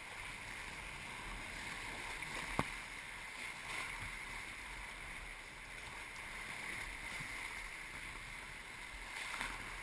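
Steady rushing of river water around a kayak, with one sharp knock about two and a half seconds in.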